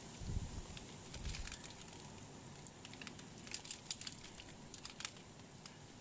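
Hailstones falling and ticking irregularly on surfaces, over a steady hiss of precipitation. A low rumble sounds during the first second and a half.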